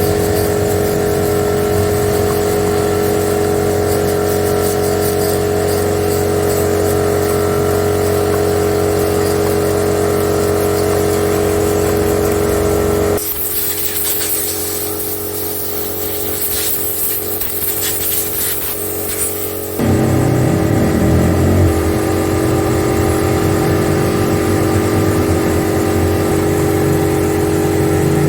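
A car engine running steadily at idle. About 13 seconds in it gives way for some seven seconds to a high hiss with scattered clicks, then the steady engine sound returns.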